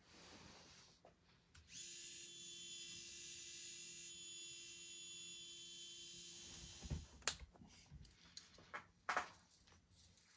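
Boom Racing Muscle servo winch on an RC crawler running steadily for about five seconds as it winds its line, a thin high-pitched motor whine, then stopping. A few sharp clicks and knocks follow.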